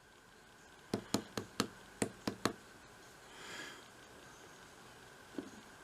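A quick, uneven run of about seven sharp clicks from handling a small dollar-store ultrasonic humidifier, followed by a soft, short rustle.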